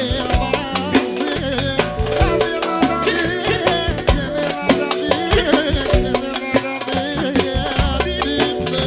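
Upbeat song with a steady drum and percussion beat and a wavering melodic line over it.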